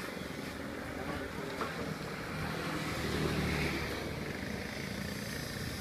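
Steady street background noise: a low engine hum from motor traffic, with wind noise on the microphone.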